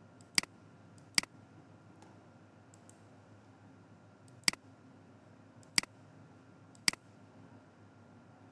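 Computer mouse button clicking: five sharp single clicks, two within the first second or so and three more from about four and a half seconds in, with a few fainter clicks between them.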